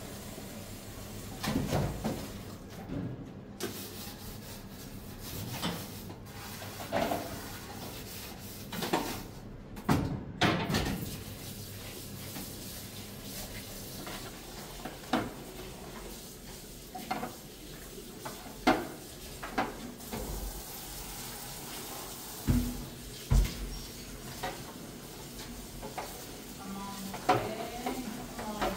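Cooking sounds: a utensil knocking and scraping against a pot at irregular intervals, over a steady frying sizzle.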